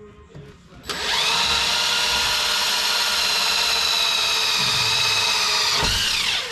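Power drill spinning up about a second in, boring steadily through the trailer wall for about five seconds, then winding down near the end as the motor stops.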